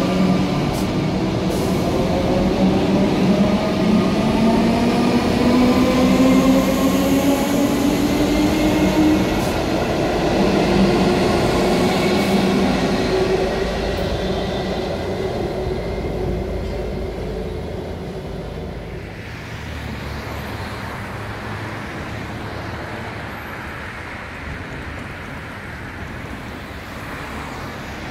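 Siemens electric train pulling away from the platform, its traction motors whining in several tones that rise in pitch over the first ten seconds as it accelerates. The sound then fades to a quieter, steady rumble.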